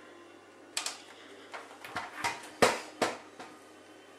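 A series of sharp clicks and knocks, about six, the loudest about two and a half seconds in, as a cable lead and its plug are handled among the gear in a plastic tool box.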